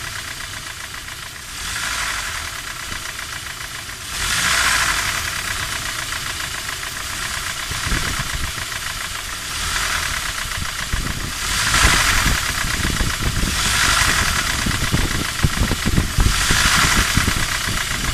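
Toyota 3RZ-FE 2.7-litre four-cylinder engine running with a rapid knock that grows denser in the second half. The engine sound swells in loudness every two seconds or so. The knock is the sign of worn piston-pin (connecting-rod small-end) bushings in cylinders 3 and 4.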